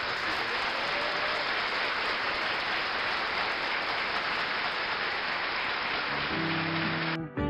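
A roomful of guests applauding: dense, steady clapping. Near the end, guitar music comes in under it and the clapping cuts off suddenly.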